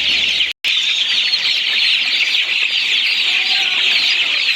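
A crowd of chicks peeping all at once, a dense, continuous chorus of high, short cheeps. There is a brief break in the sound about half a second in.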